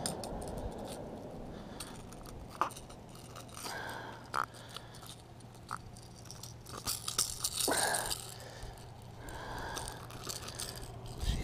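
Pliers clicking and scraping against a lure's metal treble hooks while they are worked free of a hooked peacock bass's mouth. Scattered small clicks and rattles, with a louder rustle about two-thirds of the way through.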